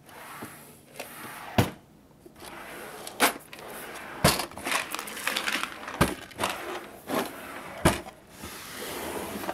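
Drawers of an IKEA Alex drawer unit pulled open and pushed shut by hand, sliding along their runners, with several sharp knocks as they close.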